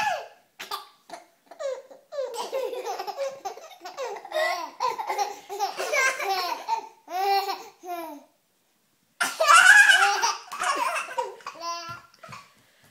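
A baby laughing in repeated bursts of giggles and belly laughs. There is a brief pause about two-thirds through, then a loud burst of laughter.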